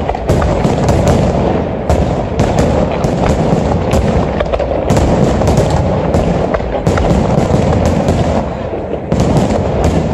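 Aerial firework shells bursting in a dense, continuous barrage: many sharp reports, several a second, over a steady low rumble.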